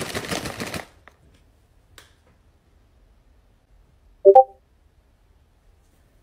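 Crinkly plastic snack bag of Regent Cheese Rings being shaken, rustling for about a second. A little past four seconds in comes one short, loud pitched sound.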